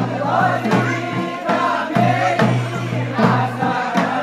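Voices singing a traditional Kumaoni jhoda folk song together in chorus, over a steady beat struck about twice a second.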